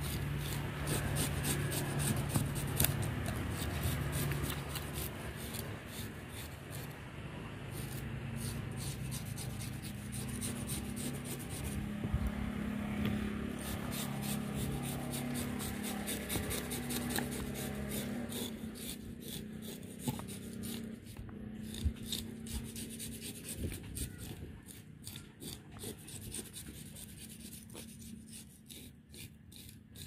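Plastic fish scaler scraping the scales off a whole trevally on a wet wooden board: a fast run of rasping strokes that thins out and quietens over the last few seconds.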